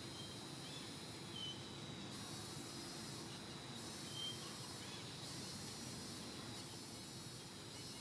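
Steady outdoor ambience of insects buzzing over a continuous hiss, with two brief high chirps, about a second and a half in and again around four seconds in.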